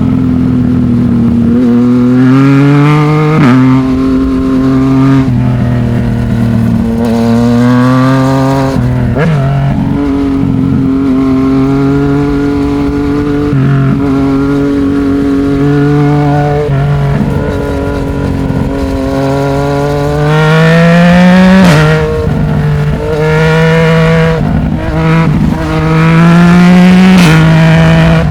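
Yamaha MT-09 three-cylinder engine through a Black Widow 200 mm aftermarket exhaust, ridden through the gears. The revs rise and drop with short breaks at each gear change, and it pulls hard up through the revs twice near the end.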